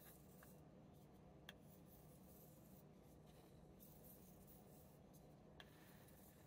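Faint swishing of a knife blade drawn in light alternating strokes along a leather strop charged with 1 micron diamond compound, stropping off the last of the burr. There are two light ticks, about a second and a half in and near the end.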